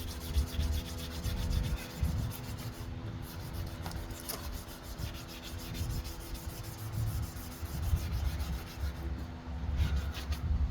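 Wet 500-grit sandpaper rubbing back and forth over a plastic headlight lens, an uneven scraping.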